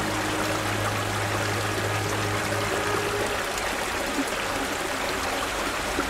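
Running water, a steady even rush like a stream.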